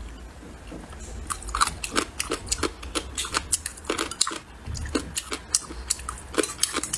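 Close-up crunchy chewing of Sichuan spicy dried radish. From about a second in come many sharp, irregular crunches, several a second.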